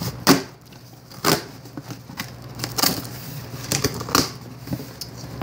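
Plastic packing tape on a cardboard box being ripped open by hand, a string of irregular sharp crackles and tearing sounds.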